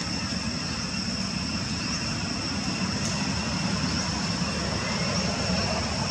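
Steady outdoor background noise: a low rumble with a constant high-pitched drone above it, and a few faint short chirps.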